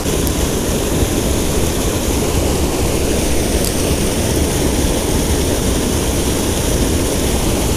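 Small waterfall spilling over a low dam into a creek pool: a steady, even rush of water.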